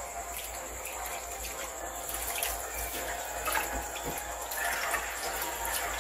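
Sliced banana flower being scooped by hand out of a bowl of water into a plastic colander: water splashing and dripping, with a few light clicks as pieces land.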